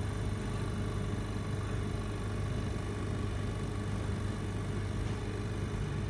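Steady low machine hum with an even hiss over it, holding constant without change.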